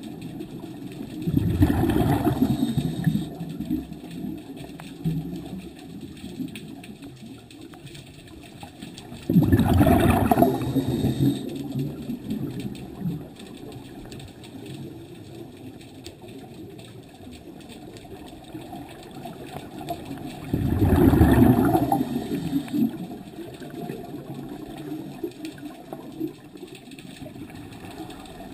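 Scuba diver's exhaled breath bubbling out of a regulator underwater, three bursts of about two seconds each, roughly ten seconds apart, heard through a GoPro underwater housing. A quieter steady underwater hiss lies between the breaths.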